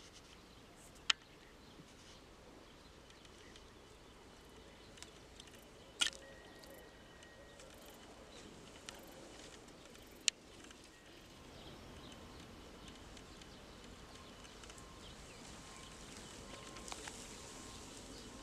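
Quiet outdoor ambience with three short sharp clicks, about one, six and ten seconds in, and a faint broken high tone in the second half.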